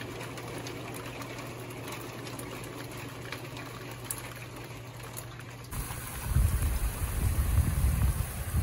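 Monsoon rain falling. At first it is a steady, fairly soft wash with a low hum and scattered faint drop ticks. About two-thirds of the way through it changes to louder rain with an uneven low rumble.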